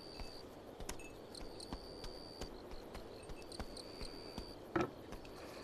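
Night insects chirping in short, high, repeated chirps, with a soft thump a little before the end.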